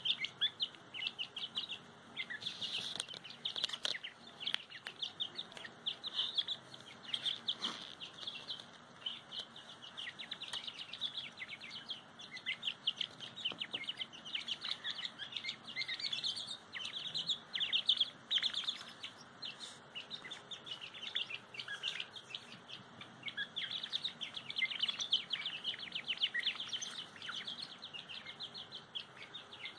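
Young grey francolin (teetar) chicks cheeping continuously in rapid, high chirps, with a few sharp clicks mixed in.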